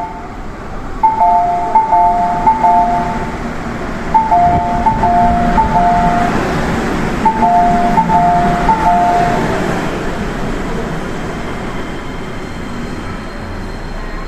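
Two-tone electronic chime on the monorail, high-low, repeating in sets of three with short pauses, ending about two-thirds of the way through. As the chime plays, the Osaka Monorail train pulls away: its motor hum builds, then settles into steady running noise.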